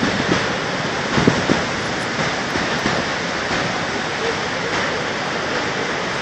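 Steady roar of Niagara's Horseshoe Falls, heavy water crashing into the misty plunge pool, with a couple of low thumps about a second in.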